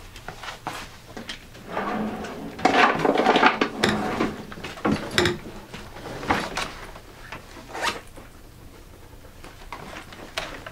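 Rummaging through office cabinets: drawers and cabinet doors opening and closing, with irregular knocks and rustling of things being moved, busiest and loudest about two to four seconds in.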